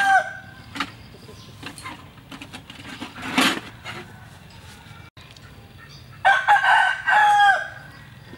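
A rooster crowing: the tail of one crow at the very start, then a full crow about six seconds in, held and dropping in pitch at its end. A brief rustle sounds in between.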